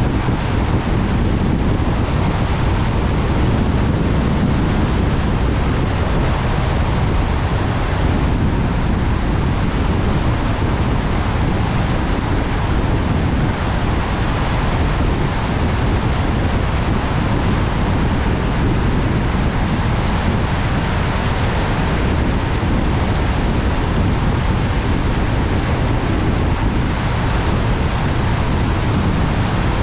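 Steady rushing road noise of a car driving along, with tyre, engine and wind noise blended into one constant roar.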